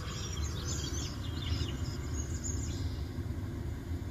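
Pause in a live radio broadcast heard over the car's speakers: a steady low hum, with faint bird chirps a little after the start and again near the end.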